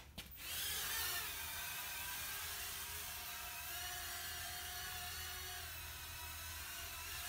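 Mini quadcopter drone's small electric motors spinning up about half a second in, then a steady high-pitched whir from the propellers, wavering slightly in pitch at first.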